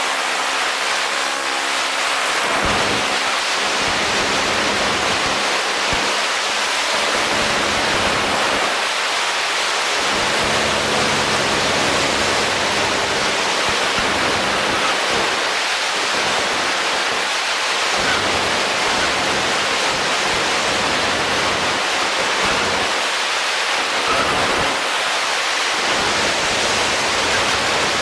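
Steady, loud rush of wind over a 360 camera's microphones in paramotor flight, with the paramotor engine's faint steady drone underneath.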